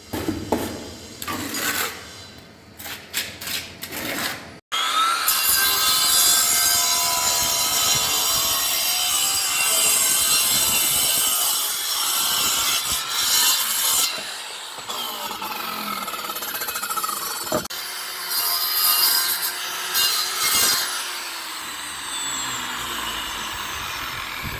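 A few sharp knocks, then after an abrupt break a power saw cutting brick, running loudly and continuously, its pitch sliding as it is loaded.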